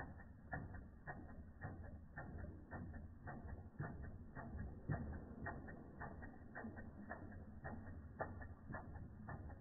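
Replica Ernst Plank tripod toy steam engine running, its mechanism clicking in a quick, somewhat uneven rhythm of about three to four clicks a second over a low rumble.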